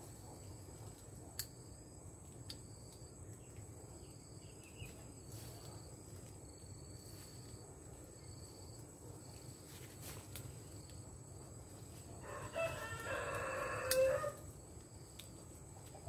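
A rooster crows once, a call of about two seconds that comes near the end, over a steady high insect trill.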